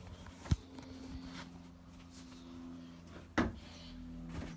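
Steady low electrical hum from a coin-operated kiddie ride just switched on and booting up, with two sharp knocks about three seconds apart.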